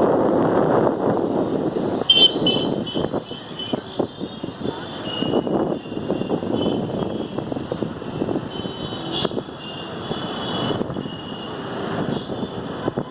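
A steady rumbling noise with many high-pitched bird chirps and calls above it, as from a large flock.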